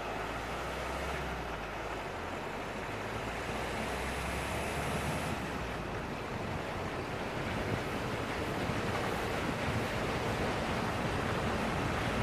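Steady rush of wind over a camera microphone mounted outside on a car's roof as the car drives along wet beach sand, with tyre and running noise underneath, slowly growing a little louder.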